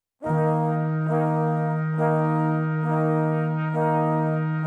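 Instrumental background music: a steady held low note under sustained chords that change about once a second.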